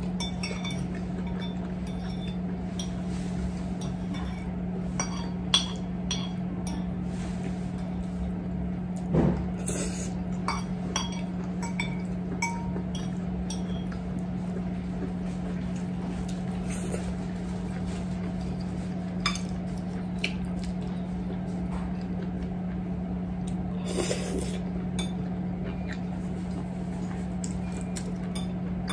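A metal fork clinking and scraping against a ceramic plate in scattered light taps as the last spaghetti is gathered, over a steady low hum. A couple of louder, brief noises come about a third of the way in and again near the end.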